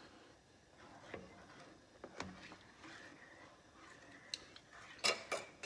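Quiet kitchen utensil sounds: a spatula stirring coconut milk in a metal pot, with scattered faint clicks. Near the end come a few sharper clicks of utensil against the pot.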